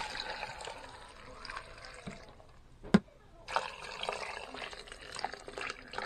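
Water pouring and splashing into a stainless steel pot over kombu and dried shiitake, filling it for soup stock. The pouring comes in two stretches, with a brief gap and a single sharp knock about three seconds in.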